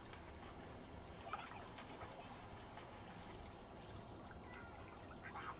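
Ducks calling: a few short quacks about a second in, and louder ones near the end, over a faint steady low rumble.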